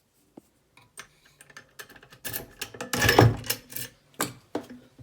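Tevlaphee Haodele car steering-wheel lock being worked by hand: a run of sharp metallic clicks and clacks from its key and locking mechanism, sparse at first, then dense and loudest from about two to four seconds in.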